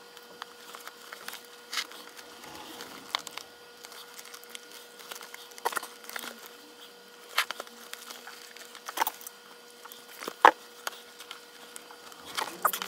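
Leather laces of a Wilson A2K baseball glove being worked with a lacing needle: scattered rustles, creaks and sharp clicks as lace is pulled through the lace holes and the leather is handled, the sharpest click about ten and a half seconds in.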